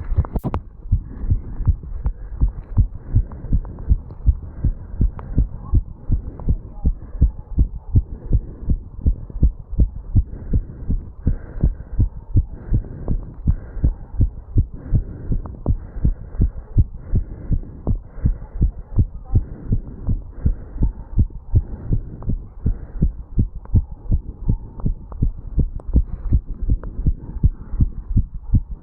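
A man's heartbeat picked up at the mitral valve area of the chest, beating fast and evenly after exertion from jogging up stairs.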